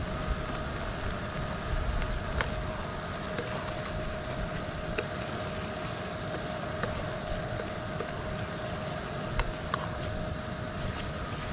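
Small fan-assisted camp wood stove running, its blower giving a constant whine over a steady rush of noise, with scattered light clicks and ticks.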